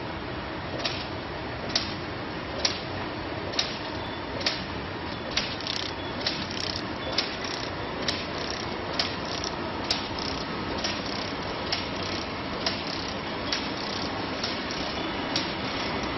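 Automatic shrink-sleeve labeling machine running: a steady mechanical whir with a sharp click about once a second, and a few extra clicks in between near the middle.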